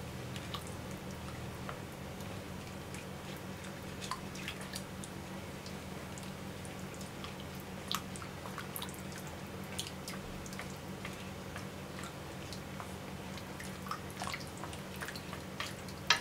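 Chopsticks stirring rice and chopped vegetables in broth in a stainless steel pan: soft wet sloshing with scattered small clicks against the pan. A steady low hum runs underneath.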